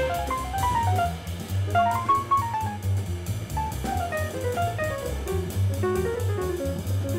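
Fast acoustic jazz from a 1965 quintet, with quick runs of single notes falling and rising over double bass and drum kit with constant cymbal.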